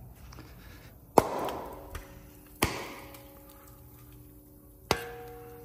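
Three sharp metal clanks, the first about a second in, the last near the end, each leaving a short ringing tone as a steel part is knocked or set down.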